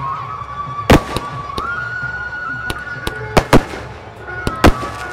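Fireworks going off in about four sharp, loud bangs: one about a second in, a quick pair past the middle and one near the end. A steady high tone is held underneath and steps up in pitch once.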